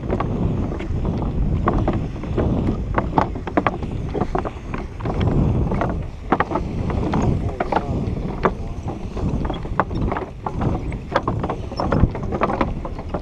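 Footsteps of several people on a wooden boardwalk, an irregular run of hollow knocks, over a low rumble of wind buffeting the microphone.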